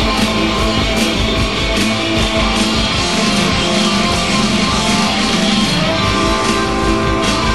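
Rock band playing loudly, live: distorted electric guitar over driving drums and cymbals, with keyboards.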